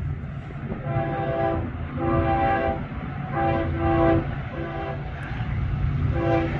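BNSF diesel locomotive's air horn sounding a multi-note chord in a series of blasts: about a second in, at two seconds, around three and a half seconds, and again near the end. Under the horn runs the steady low rumble of the train.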